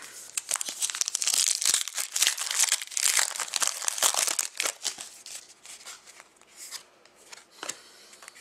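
Foil wrapper of a Panini Rookie Anthology hockey card pack being torn open and crinkled, a dense crackling that lasts about five seconds. It then drops to fainter rustles and clicks as the cards are handled.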